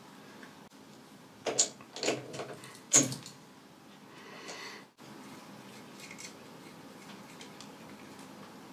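Small steel parts being handled at a lathe chuck: a quick run of sharp metallic clinks and knocks from about a second and a half to three seconds in, the loudest about three seconds in. A short rustle follows and cuts off sharply about five seconds in.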